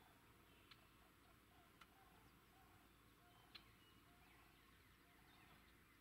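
Near silence: faint outdoor ambience with three soft ticks, the loudest about three and a half seconds in.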